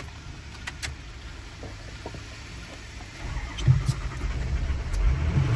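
Ford Super Duty pickup's engine being started: a few light clicks at the ignition, then the engine cranks and catches a little over three seconds in and settles into a steady low idle.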